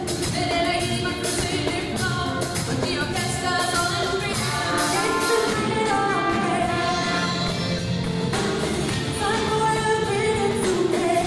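Live pop band playing: two women singing into microphones over a drum kit and electric guitar, with steady drum strokes.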